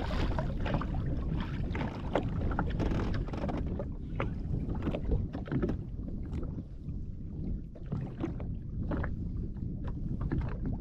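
Wind buffeting the microphone and water lapping against a Sea-Doo Fish Pro jet ski on open sea, a steady low rumble with many small knocks and taps scattered through it.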